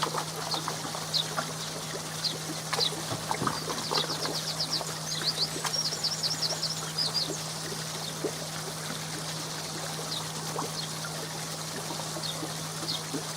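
Pond water pouring and trickling steadily through the filter box, over a steady low hum. A bird sings a rapid run of short high notes about four to seven seconds in.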